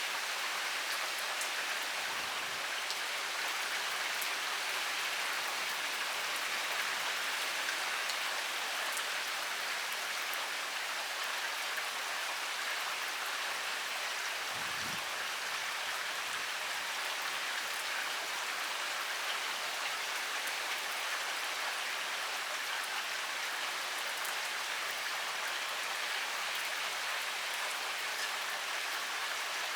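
Heavy rain pouring steadily, with individual drops ticking through the hiss.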